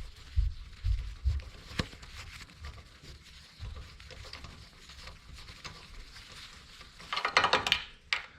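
Hand tools working a spark plug out of a small engine with a 5/8 spark plug socket. A few dull knocks come first, then a quick run of rapid ratchet-like clicking near the end.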